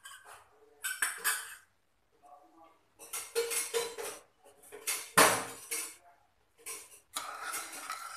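Kitchen utensils clattering and clinking a few times, the loudest knock about five seconds in. From about seven seconds a wooden spoon starts stirring tomato juice and sugar in a non-stick pan.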